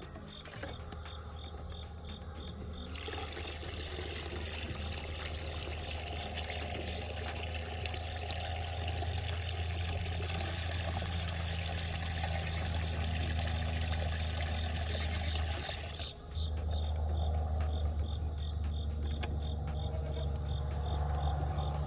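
Water pouring steadily while the animals' waterers are changed out, starting about three seconds in and stopping about three-quarters of the way through. Crickets chirp in a rapid high pulse, and a steady low hum runs underneath.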